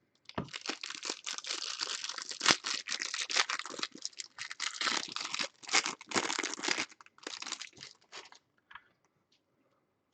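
Plastic trading-card pack wrapper being torn open and crinkled by hand, a dense crackling that thins out after about seven seconds and stops soon after.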